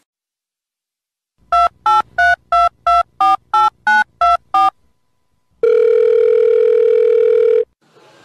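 Telephone keypad tones: about ten quick dialing beeps, roughly three a second, then one steady tone lasting about two seconds.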